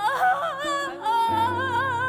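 Musical-theatre singing: a high voice holds long notes with vibrato over an instrumental accompaniment, and a low bass note comes in a little past halfway.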